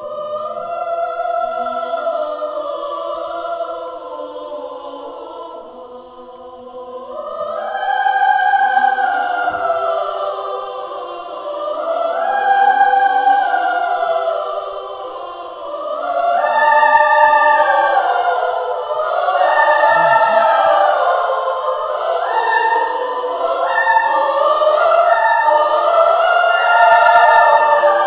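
Women's choir singing held chords in several voice parts, in phrases that swell louder and fall back again and again.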